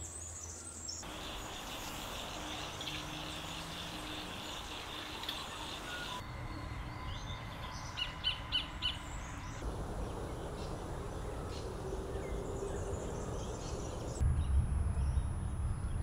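Sacred kingfisher calling: a quick run of four sharp, evenly spaced notes about eight seconds in, over other faint bird calls. A low rumble comes in near the end.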